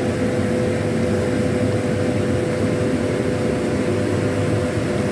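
A steady, unchanging mechanical hum: a low rumble with one constant tone held above it.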